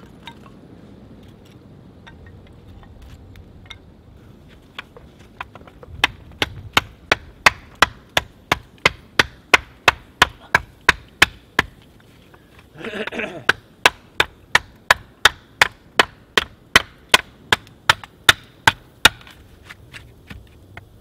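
Adventure Sworn bushcraft knife chopping into a wooden stick: a steady run of sharp wood knocks, about two to three a second, starting about six seconds in and stopping near the end.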